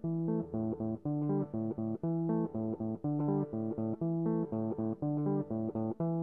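Background music: plucked guitar over a bass line, playing a steady riff of short repeating notes.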